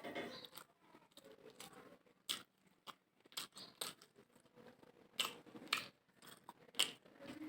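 A person chewing a mouthful of mutton biryani, with irregular sharp wet smacks and clicks of the mouth.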